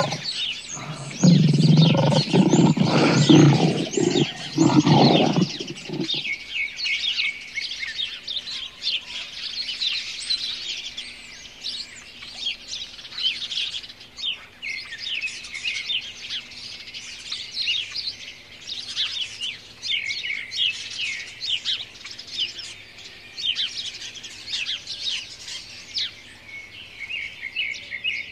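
A lioness gives a series of low, pulsing roars and grunts for the first six seconds or so, over a constant chorus of chirping birds. After that only the birdsong goes on.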